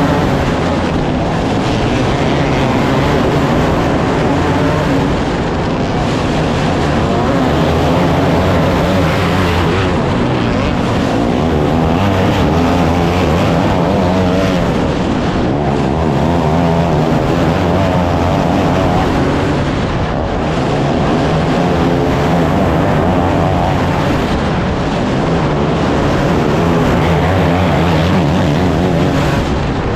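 Engine noise running loud and steady, its pitch wavering slightly.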